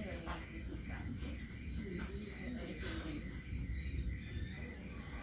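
Crickets chirping in a steady, even pulse of about five chirps a second, over a low background hum.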